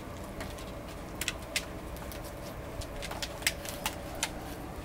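A puppy moving about on a concrete floor: about nine scattered light clicks and taps, over a faint steady hum.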